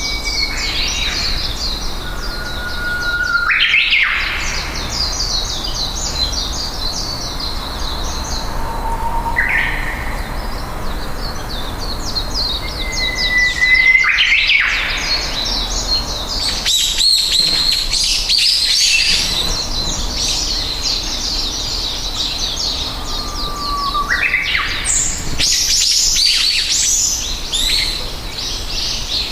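Many small birds chirping and twittering continuously, high-pitched and dense, with about five louder calls scattered through that hold a short note and then sweep sharply upward.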